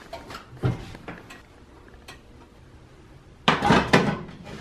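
Oven door pulled open with a low thump, then a metal baking sheet clattering as it is lifted out and handled over a glass stovetop: a cluster of sharp knocks about three and a half seconds in and one more near the end.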